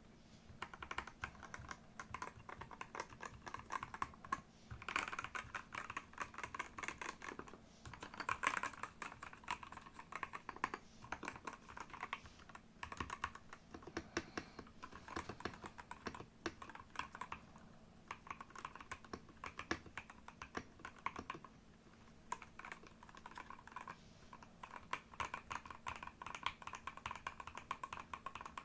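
Typing on a NextTime 75 mechanical keyboard with Gateron G Pro Red linear switches and XDA-profile keycaps: a fast, continuous run of keystrokes with a few brief pauses.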